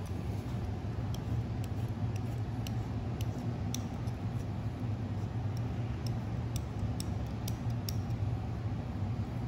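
Small steel scissors snipping irregularly, a faint click with each cut, as flesh is trimmed from around the eyelid of a deer cape. A steady low hum runs underneath.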